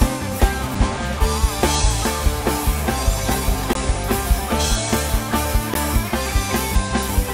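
Rock music with a drum kit keeping a steady, fast beat under sustained pitched instruments.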